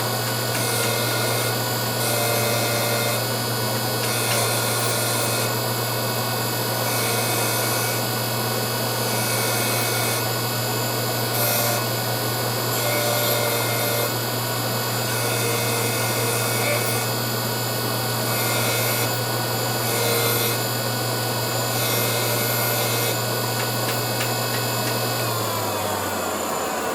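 A power tool's electric motor running steadily with a rubbing, grinding noise over it, as a workpiece is ground or sanded. The motor's hum drops in pitch near the end as it winds down.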